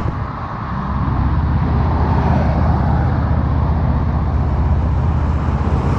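Motor traffic on a busy road: a steady low engine rumble with the hiss of passing vehicles, a little quieter in the first second.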